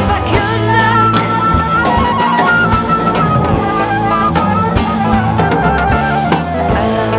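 A small band playing a song: drum kit keeping the beat with guitar and double bass underneath, and a high melody line carried above them.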